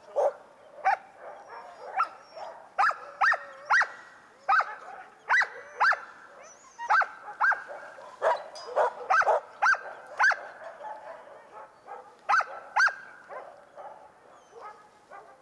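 Harnessed Samoyed sled dogs barking in a rapid string of short, sharp barks, one or two a second, while the team is held waiting to run.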